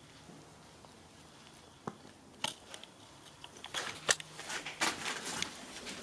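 Footsteps crunching and cracking over debris on a littered floor, starting about two seconds in and coming more often and louder toward the end.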